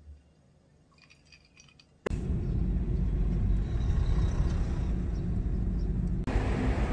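A few faint clinks of tableware, then about two seconds in a sudden cut to a steady, loud, low rumble of vehicle traffic noise. It changes abruptly to a brighter hiss near the end.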